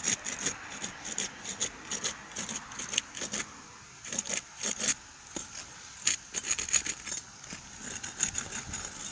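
Irregular scraping, crinkling and rattling clicks from work on asphalt roof shingles.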